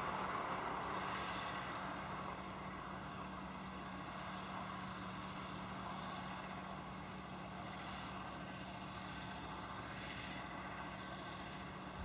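John Deere 6155R tractor's six-cylinder diesel engine running steadily under load while pulling a five-furrow plough through the soil, a constant hum that is a little louder in the first two seconds.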